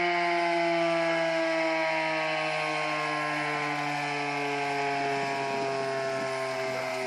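Federal Signal Model 7 outdoor warning siren winding down at the end of a routine test sounding, its tones sliding slowly and steadily down in pitch as it fades a little.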